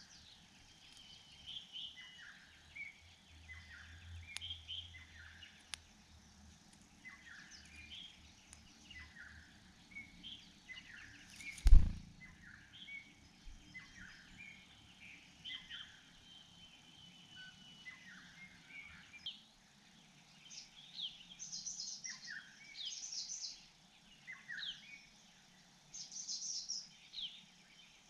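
Small birds chirping repeatedly in short, falling notes, with higher, sharper chirps joining in the second half. A single loud thump about twelve seconds in.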